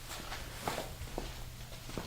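Footsteps and a few light knocks and rustles, over a low steady hum.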